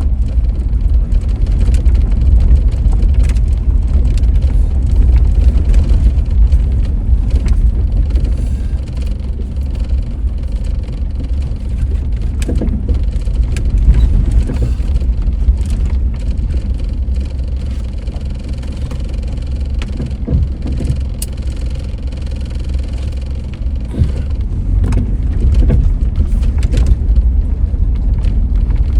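A vehicle driving along a rough Forest Service road, heard from inside the cab: a steady low rumble of engine and road noise with scattered knocks and rattles, easing a little in the middle.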